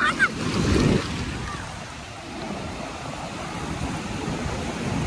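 Sea surf washing in over shallow water at the shoreline, a steady rushing noise that swells to a louder low surge just before a second in, then settles.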